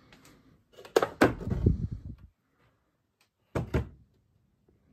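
Knocks and thumps from handling things while moving through a doorway: a cluster of sharp knocks with a low thud about a second in, then two sharp clicks near the end.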